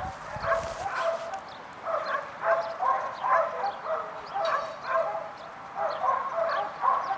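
Dogs yapping and barking over and over, a steady run of short high yips a few times a second at more than one pitch.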